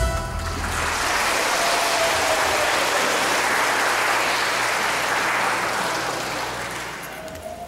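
Audience applauding. The clapping starts just as the music stops and fades away near the end.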